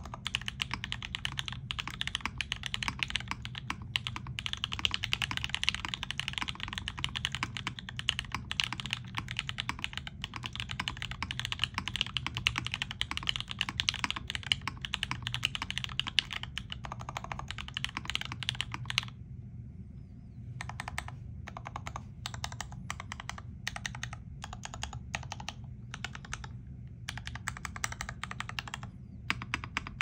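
Mechanical keyboard with vintage Cherry MX Black linear switches on an aluminium plate, with thick PBT keycaps, typed on quickly in a steady stream of key clacks. About two-thirds of the way through, the typing thins out to scattered single keystrokes.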